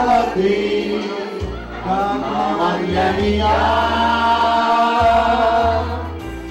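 A group of women singing a song together in unison, reading the words from lyric sheets, over an instrumental accompaniment with a bass line that changes note about once a second.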